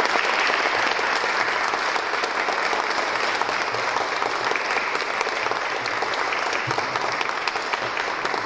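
Audience applauding, a dense run of clapping that thins slightly near the end.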